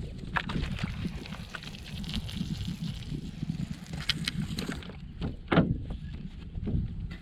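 Water sloshing and splashing, with a few sharp splashes or knocks; the loudest comes about five and a half seconds in.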